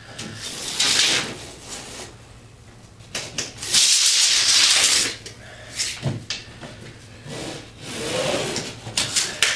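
Scraping and rustling from a tape measure and hands working on a drywall sheet while it is measured and marked for cutting. The loudest is a hiss about a second long near the middle, with shorter scrapes near the start and near the end.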